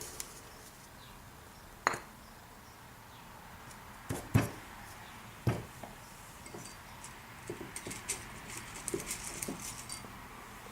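Small hard objects being handled and set down: a few sharp clicks and knocks, the loudest about four seconds in, then a run of light ticks and taps.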